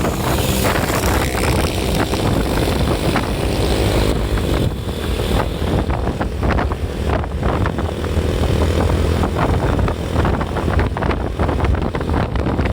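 Road noise on the move: a steady low engine drone with wind buffeting the microphone.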